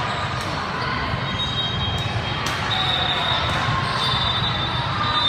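Volleyball gym ambience in a large echoing hall: a few sharp knocks of a ball bouncing and being struck, over steady chatter of players and spectators, with a few brief high squeaks.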